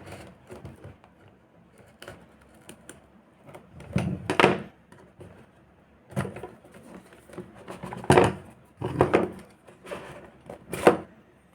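Box packaging and accessories being handled during an unboxing: irregular rustling and light knocks, loudest about four seconds in, about eight seconds in and near the end.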